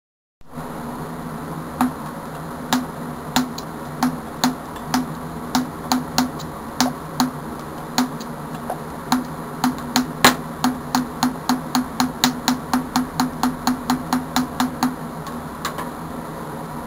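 A homemade TPU coil circuit with an air-core coil connected, making a steady electrical hum with sharp snapping clicks of electric sparks. The snaps come irregularly at first, then speed up to about three a second before stopping near the end.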